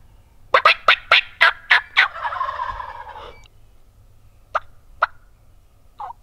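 Wild turkey tom gobbling at close range: a loud, fast, rattling run of notes about half a second in that trails off after about three seconds, two single notes, then another gobble starting near the end.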